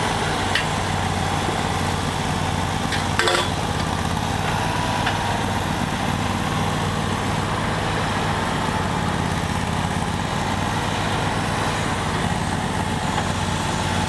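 Engine of the site machinery idling steadily, with one sharp knock about three seconds in.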